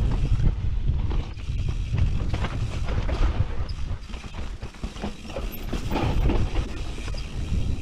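Propain Spindrift enduro mountain bike descending a dirt forest trail at speed. Its tyres rumble over the dirt and roots, and the bike rattles and knocks often, under a low rumble of wind on the microphone.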